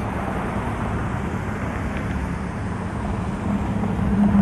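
Airbus A330-300 jet engines heard from a distance as a steady rumble and hiss with a low hum, growing louder near the end as the engines spool up for the takeoff roll.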